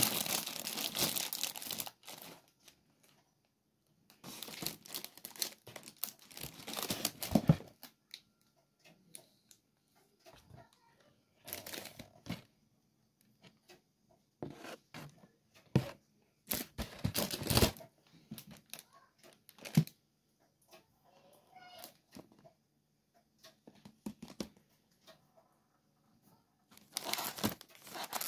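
Plastic and foil food packaging crinkling and rustling in several separate bursts as grocery packets are picked up and handled, with small clicks and knocks between.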